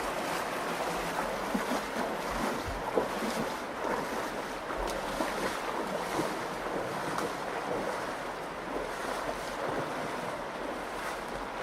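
The Virgin River flowing: a steady rush of water with small splashes and trickles scattered through it.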